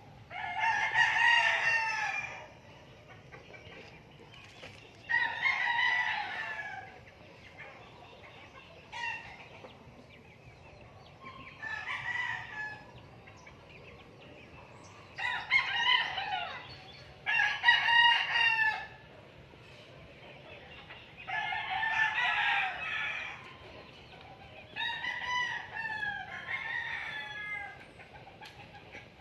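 Roosters crowing, about nine crows of a second or two each, some loud and near, others fainter and farther off.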